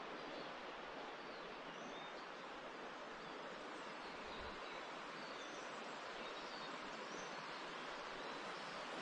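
Steady forest ambience: an even rushing hiss, with faint high bird chirps now and then.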